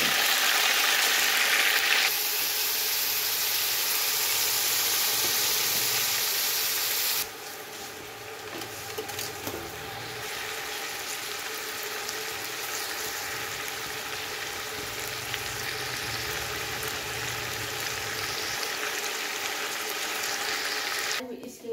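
Chicken pieces searing in hot oil in a large aluminium pot, a steady sizzle, with a metal ladle stirring them. The sizzle is loud at first and drops abruptly to a quieter level about seven seconds in.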